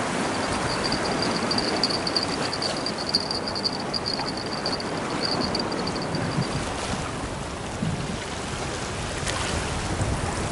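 Small waves washing against the shore, with some wind on the microphone. A thin, high, pulsing ring runs through the first six seconds or so.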